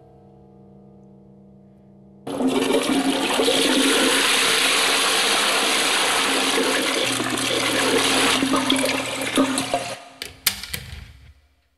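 Toilet flushing: the rush of water starts suddenly about two seconds in and runs steadily for about eight seconds, then drains away in a few gurgling spurts and stops.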